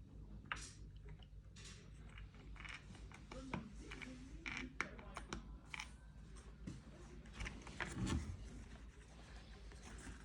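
Irregular small clicks, taps and scrapes of hands working on an electric kettle's parts and wiring, over a steady low hum.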